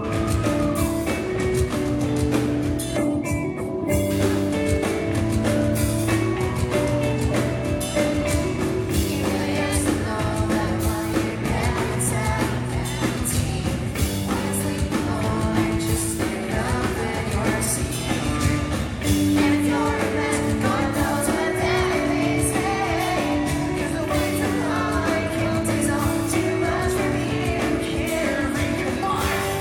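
Live pop-punk band playing with sung vocals over electric guitars, bass and drums, steady and loud through a concert hall.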